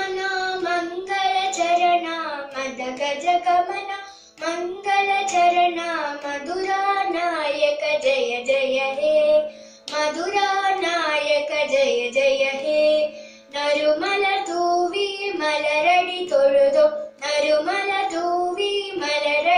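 A young girl's solo voice singing a Carnatic devotional song in raga Karnataka Devagandhari, in long gliding phrases with short breaths between them. A steady drone holds a constant pitch beneath her throughout.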